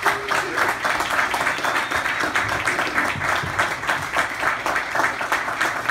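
An audience applauding: many hands clapping in a dense, steady patter right after a speech line ends.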